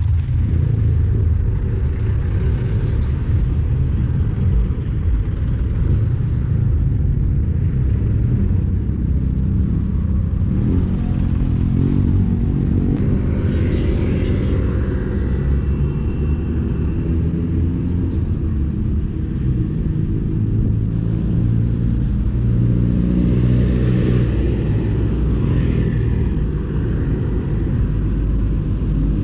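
Steady low rumble of wind on the microphone and road traffic while cycling along a busy road, with cars and motorcycles passing.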